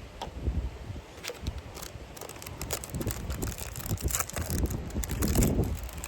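Wind buffeting the microphone with a low rumble, under a run of small clicks and crackles.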